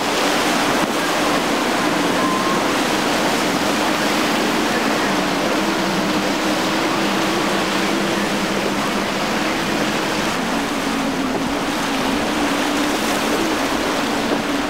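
Boat engine running at speed, a steady drone over a loud rushing hiss of spray and waves.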